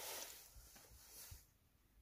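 Near silence: a faint steady hiss that drops out to dead silence about a second and a half in.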